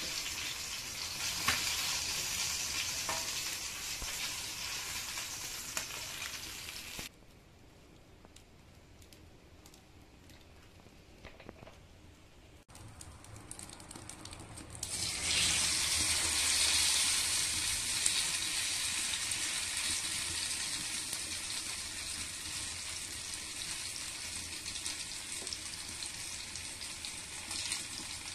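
Pomfret fish shallow-frying in hot oil in a cast-iron pan, a steady sizzle. About seven seconds in it drops abruptly to a faint hiss, then comes back loud about fifteen seconds in with a masala-coated fish frying in the oil.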